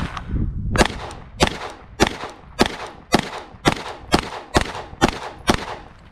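Glock 45 9mm pistol firing about ten shots at a steady pace of roughly two a second, the first nearly a second in.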